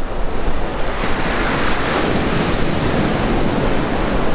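Ocean surf breaking and washing up the beach, swelling about a second and a half in, with wind buffeting the microphone.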